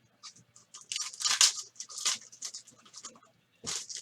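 Trading card packs and cards being handled: a quick run of short rustling, scraping sounds, densest and loudest between about one and two seconds in, with another burst near the end.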